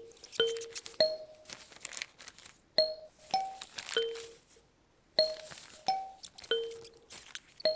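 Kalimba plucking a short repeating phrase of ringing notes, with paper rustling and crinkling layered over it. The playing pauses about four seconds in, then resumes.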